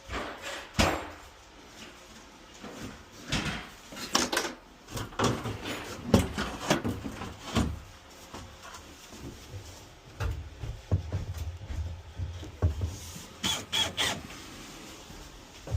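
Irregular knocks, clicks and scraping from tools and parts being handled during installation work, with a low rumble underneath.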